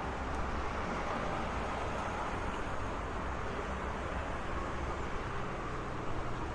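Steady road traffic noise: a continuous wash of passing cars with a low rumble, growing a little louder near the end.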